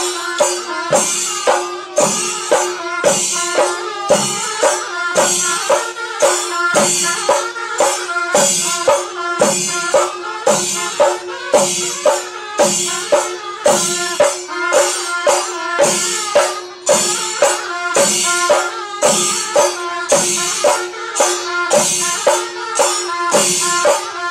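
A Kerala temple festival percussion ensemble plays a steady, even beat: metal hand cymbals clash together with drum strokes. A single held tone runs under the rhythm.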